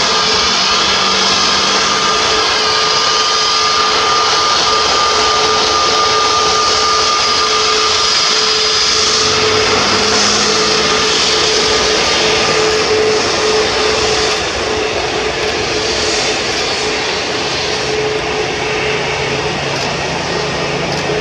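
Airbus A321neo's twin turbofan engines at taxi power as the jet rolls close past: a steady whine over a broad jet hiss, dropping a little in loudness about two-thirds of the way through.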